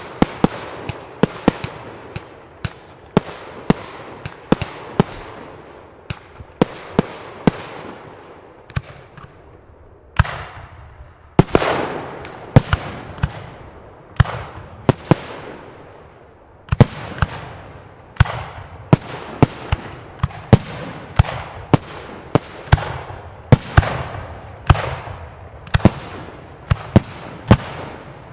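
Fireworks display: aerial shells bursting in quick succession, sharp bangs often several a second over a steady crackle, with a brief thinning about nine seconds in before a dense volley resumes.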